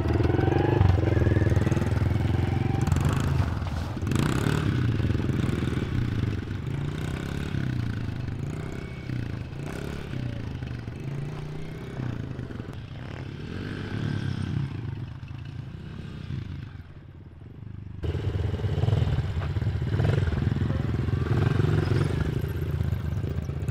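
Small dirt bike engine running as the bike pulls away in first gear and rides slowly off, growing fainter. About eighteen seconds in the sound changes abruptly to a closer, louder engine running.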